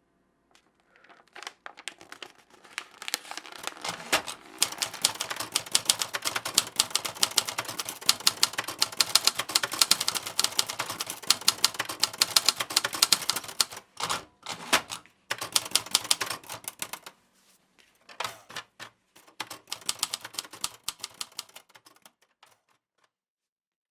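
Typewriter keys clattering in a fast, dense run of strikes. The run builds over the first few seconds, breaks off briefly twice past the middle, then resumes in shorter bursts and stops near the end.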